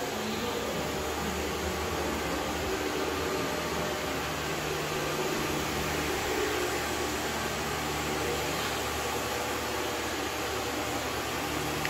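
Steady whirring noise from a running motor-driven machine, with a steady low hum underneath that grows stronger a few seconds in.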